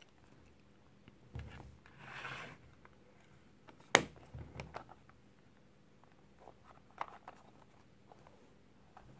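Handling sounds of a Swiss army knife: a soft bump, a brief scraping rustle, then one sharp click about four seconds in, the loudest sound, followed by a few lighter clicks and another small click later.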